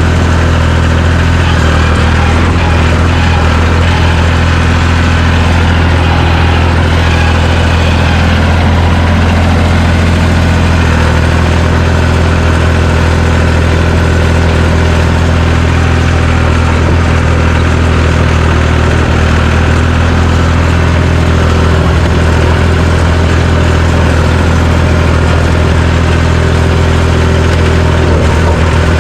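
John Deere 350 crawler dozer's engine running steadily, a low, even drone with no let-up.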